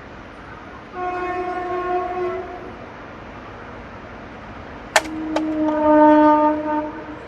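Train horn sounded twice: a shorter blast about a second in, then a lower, louder blast about five seconds in, just after two sharp clicks.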